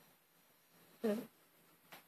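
Sleeping pug making one short, pitched vocal sound, a brief whine-like grunt, about a second in, followed by a faint click near the end.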